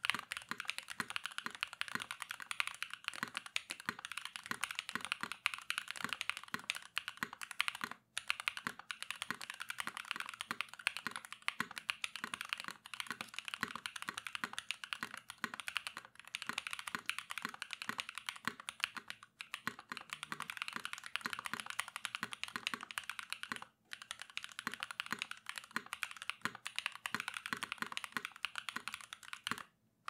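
Fast, continuous typing on a custom mechanical keyboard: an SBL with an aluminium plate, stock SWK Mocha switches, CRP keycaps, TX stabilisers and no foam. There are brief pauses about 8, 19 and 24 seconds in.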